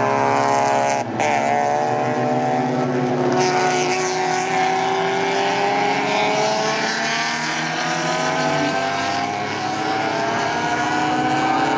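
Engines of classic cars lapping a race circuit, their notes climbing slowly as they accelerate out of a bend. There is a short break in the sound about a second in.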